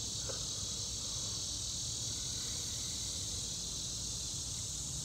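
A steady, high-pitched chorus of insects trilling outdoors, with a faint low background rumble.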